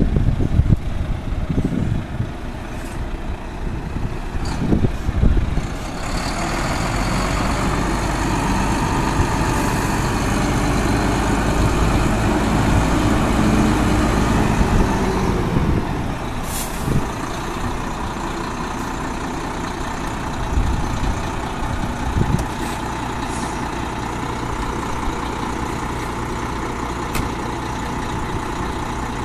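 Renault Premium 460 tractor unit's six-cylinder diesel engine running as the truck manoeuvres at low speed. The engine note is raised for several seconds, then settles to a steadier, quieter run, with a short sharp air-brake hiss about halfway through. Wind buffets the microphone at the start.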